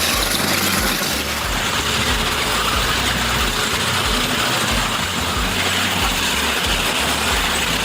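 Tesmec 975 EVO surface miner running, a steady engine rumble under a dense, continuous grinding noise.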